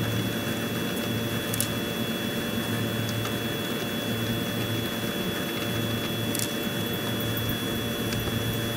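Steady mechanical drone from a running machine, with a constant high whine over a low hum that swells and fades every second or two. A couple of faint light clicks sound over it.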